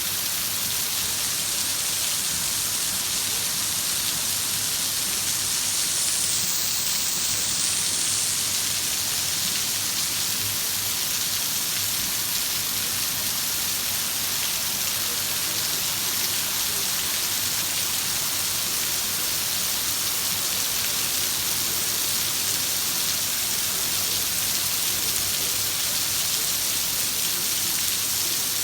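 Heavy rain falling steadily: a dense, even hiss with no individual drops standing out.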